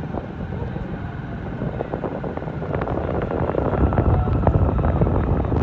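A vehicle's engine and road noise heard from on board while it moves, with wind buffeting the microphone. It gets louder about halfway through.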